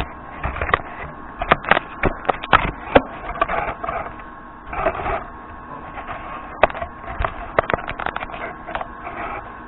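Small metal tools clicking and clattering as they are handled and moved about in a machinist's toolbox, in irregular knocks and quick runs of clicks, over a faint steady hum.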